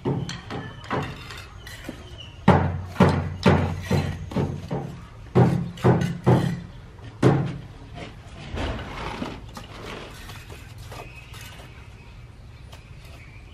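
Repeated heavy knocks, about two a second, in a run of a dozen or so through the first half, then fading into fainter clatter.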